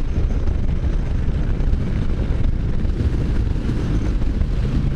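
Strong gusty wind buffeting the microphone over the steady running noise of a Can-Am Spyder three-wheeled motorcycle on the road.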